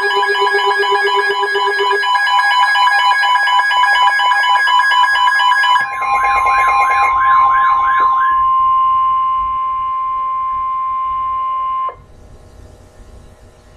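Emergency alert tones for a severe thunderstorm warning, the signal that a National Weather Service warning is about to be read. Several electronic alarm tones sound at once: pulsing beeps and warbles. About six seconds in they give way to a warbling tone for a couple of seconds, then one steady high tone alone, which cuts off suddenly about twelve seconds in and leaves faint hiss.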